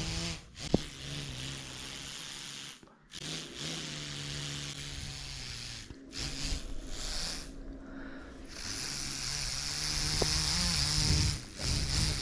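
Breath blown repeatedly through a small homemade spinner made from an ear-bud stick and copper wire. Each breath is a hissing blow with a steady low buzz, lasting a second or more, with short pauses between several blows.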